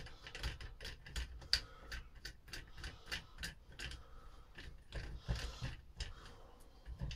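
Faint, irregular small clicks and taps of a screwdriver and metal parts being worked on a solenoid as it is taken apart, a few clicks a second.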